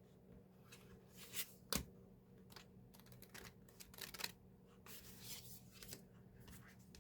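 Faint rustling and light clicks of paper and card album inserts being pulled out and handled, with a sharper tap a little under two seconds in.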